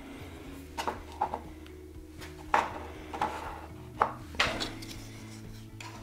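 Several sharp, light taps and clicks of small hand tools being handled on a workbench, over quiet background music.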